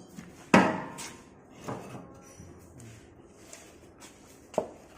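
Three sharp knocks, each with a short ring: a loud one about half a second in, a softer one near two seconds, and another just before the end.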